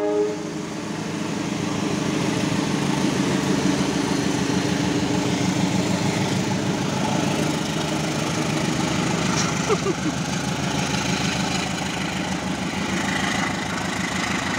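Diesel railway locomotive engine running at idle, a steady low hum with an even pulse, with a brief squeak about ten seconds in.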